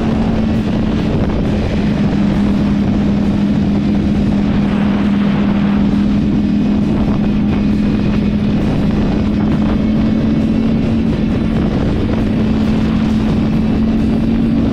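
Motorcycle engine running at a steady cruising speed, holding one even tone, with wind rushing over the microphone.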